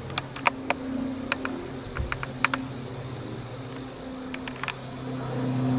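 A departing Class 377 Electrostar electric multiple unit running away into the distance: a low, steady hum, with a higher hum that comes and goes. Irregular sharp clicks and ticks sound over it throughout.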